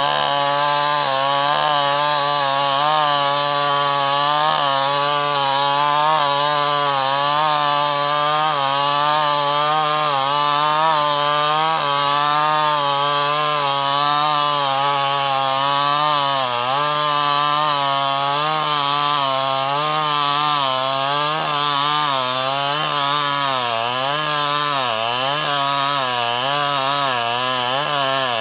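Two-stroke chainsaw running steadily at cutting speed while sawing through mahogany. Its pitch wavers up and down as the chain loads in the wood, with deeper dips a few times in the second half.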